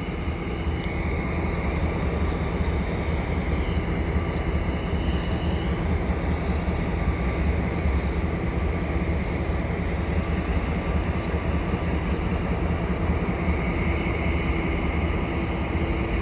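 EMD GP38-2 diesel switcher locomotives, with two-stroke V16 engines, idling with a steady low rumble while they wait on a switch move.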